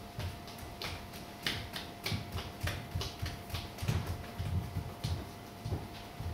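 Footsteps on a hard shop floor: soft low thuds at an unhurried walking pace, about every half second, with light clicks and taps between them. A faint steady hum runs underneath.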